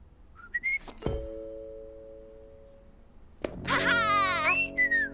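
Cartoon sound effects: a bright bell-like ding about a second in that rings on and fades, then a loud comic musical sting with quick falling, warbling slides, a typical cartoon cue for a character hitting on a sly idea.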